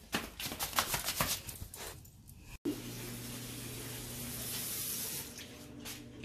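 A quick run of clicks and scuffles, then, after a cut, tap water running steadily into a bathroom sink as a child washes his hands, with a low hum underneath; the water falls away near the end.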